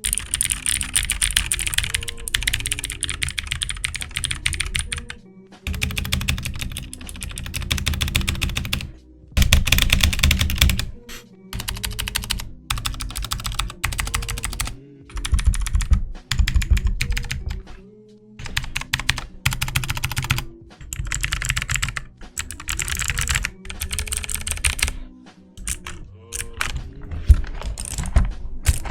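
Fast typing on a Redragon K580 RGB mechanical keyboard with Outemu Blue clicky switches, a dense clatter of keystrokes in runs broken by short pauses. Background music plays underneath.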